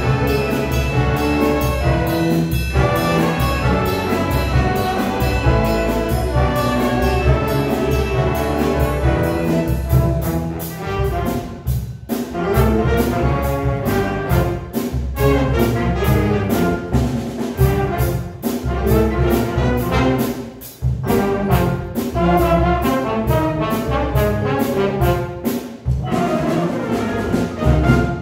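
A student jazz big band playing live: a saxophone section, trumpets and trombones over drums and rhythm section, with a steady drum beat and a couple of brief dips in loudness about twelve and twenty-one seconds in.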